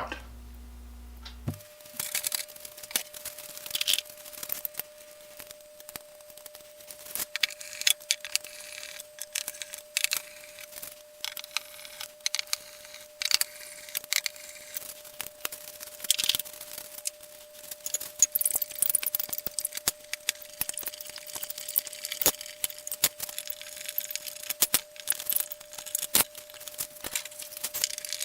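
Irregular clicks, taps and knocks of hand tools and small metal hardware on a wooden tool box as a metal band is fitted and screwed to its bottom. A faint steady tone runs underneath from about a second and a half in.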